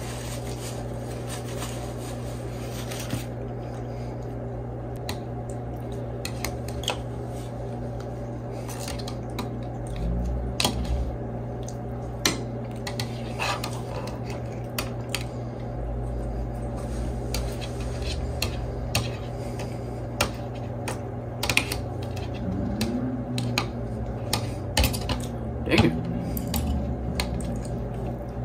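Metal chopsticks clicking and scraping against an open metal sardine tin: irregular sharp taps, starting a few seconds in and coming more often later, over a steady low hum.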